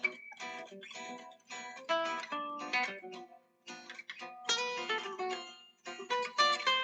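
Background music: plucked acoustic guitar playing a melody of short, separate notes.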